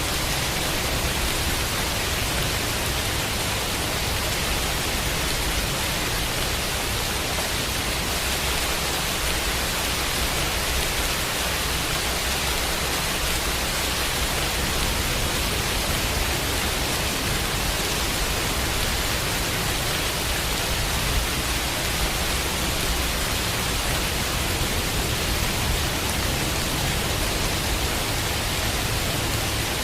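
Steady rain mixed with white noise, an even, unbroken hiss.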